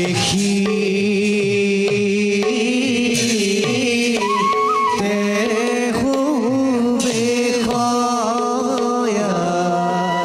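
Live Assamese bhaona ensemble music: khol drums beating a steady pattern and a melody over a constant drone, with stretches of clashing taal cymbals about three seconds in and again near eight seconds.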